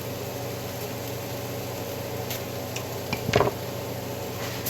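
Stovetop cooking sounds: a steady low hum with a few light clicks, and one louder short knock or clatter a little over three seconds in.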